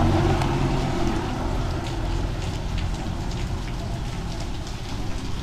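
Heavy rain pelting down, with many scattered drops ticking against the microphone over a low rumble.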